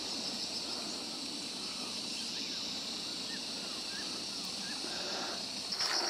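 Steady high-pitched drone of insects in hillside scrub, with a few faint short chirps partway through. Near the end the drone grows louder and takes on a pulsing beat.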